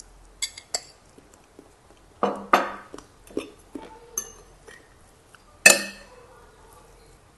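Metal spoon and fork clinking and scraping against a ceramic plate while mixing rice: a dozen or so separate knocks. The loudest are a quick cluster about two and a half seconds in and a sharp clink near the end that rings briefly.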